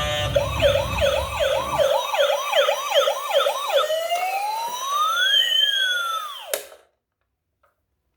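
Toy emergency vehicle's electronic siren, a quick yelp of about three rising-and-falling sweeps a second, then one slow wail that rises and falls before cutting off suddenly.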